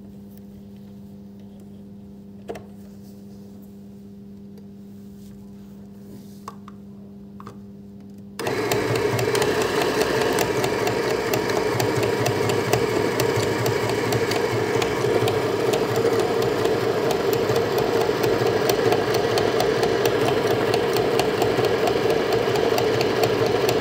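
Portable electric sewing machine (REDBUZZ 505A) starting up about eight seconds in and stitching at a steady speed, a loud continuous whirr and clatter of the motor and needle. Before it starts there is only a low steady hum and three light clicks as the fabric is set in place.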